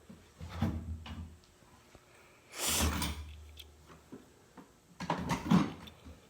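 Steel drawers of a Husky 52-inch industrial tool chest being slid shut and pulled open, three times: a short clunk, a longer sliding rumble on the runners, then another slide and clunk.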